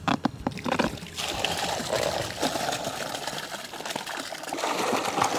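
Water with fish fry being poured into a net cage set in a stream, splashing and pouring steadily, after a few knocks in the first second.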